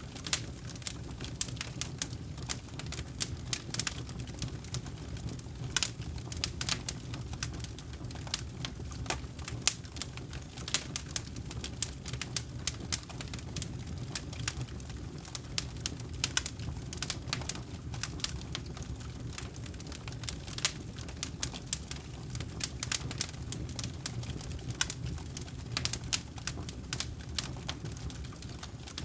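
Wood campfire burning: dense, irregular crackles and pops over a low, steady rumble of the flames.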